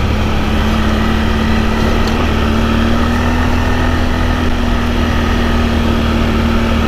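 ATV engine running at a steady speed under way on a trail, a constant drone with a single steady pitch.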